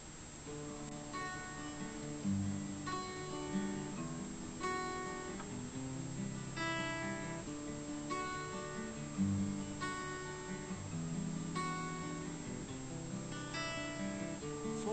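Background music: an acoustic guitar strumming and picking a chord pattern, with the chord changing about every second and a half, as the instrumental lead-in to a song.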